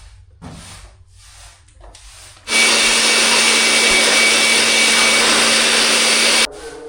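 Pressure washer running and spraying water, as used in AC coil cleaning: a few short, faint spurts, then one loud steady hiss with a motor hum from about two and a half seconds in, lasting about four seconds and cutting off suddenly.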